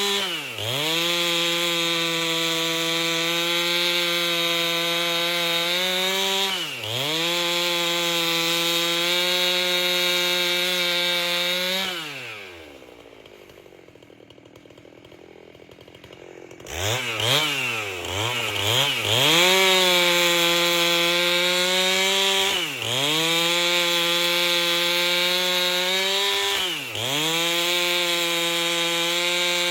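Chainsaw with a 30-inch bar running at high revs while ripping a log lengthwise, its pitch dipping briefly every few seconds. About twelve seconds in it drops to idle for roughly four seconds, is blipped up several times, then runs high again.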